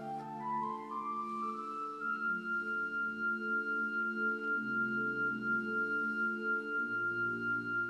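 Instrumental music: a quick run of notes climbs into one long high held note, over a steady repeating pattern of lower notes with bass notes that change about every two seconds.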